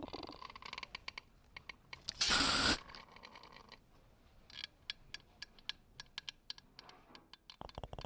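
Scattered light clicks and taps, with one short scraping, hissing burst about two seconds in.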